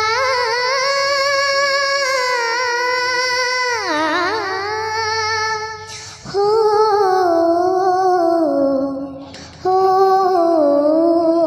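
A young girl singing unaccompanied, holding long wavering vowel notes with a downward swoop about four seconds in. She breaks off briefly twice, near six and near ten seconds, and the later phrases step downward in pitch.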